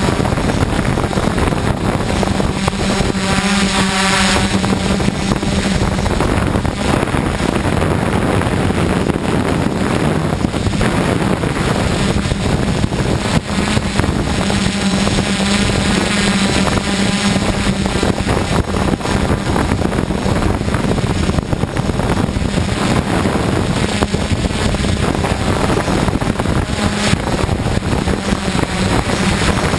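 DJI F550 hexacopter's six motors and propellers humming steadily in flight, with a low drone that shifts slightly in pitch as the craft holds against gusts. Heavy wind buffets the microphone.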